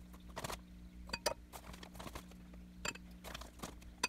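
A plastic zip bag rustling as handfuls of potassium nitrate powder are scooped out and dropped into a glass beaker: a scatter of short soft rustles and light taps.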